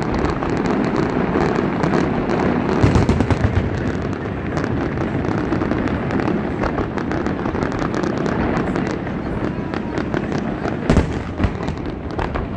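Fireworks going off close by in a dense barrage: a continuous rumble of bursts with rapid crackling and popping throughout, the loudest bangs about three seconds in and again near eleven seconds.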